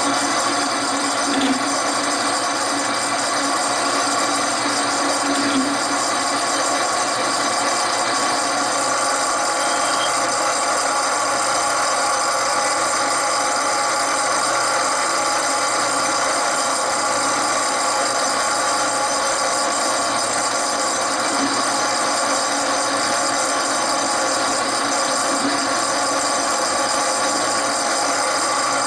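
Bandsaw running steadily while it cuts through a plate, the piece being fed slowly along a curved line.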